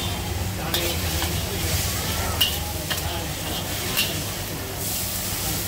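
Char koay teow noodles stir-frying in a wok, sizzling steadily while a metal spatula scrapes and turns them. The spatula strikes the wok in several sharp clinks, the loudest about two and a half seconds in.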